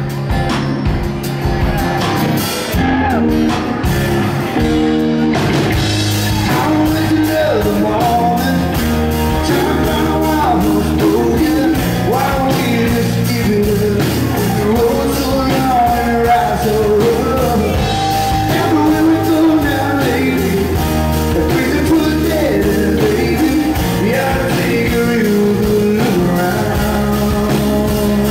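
Live rock band playing a song: a man singing over acoustic guitar, electric guitar, bass guitar and drums, with the full drum beat coming in about six seconds in.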